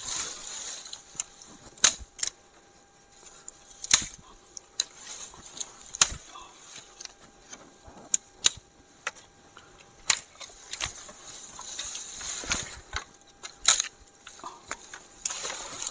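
Dry sticks and branches breaking by hand, in sharp snaps and cracks a second or two apart, with leafy undergrowth rustling in between.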